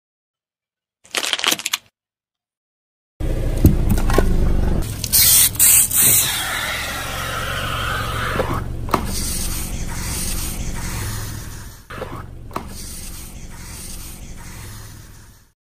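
A car tyre rolling onto objects and crushing them. A short crackle about a second in, then after a gap a longer stretch of crunching, cracking and scraping with a sharp hiss early in it, over a steady low rumble.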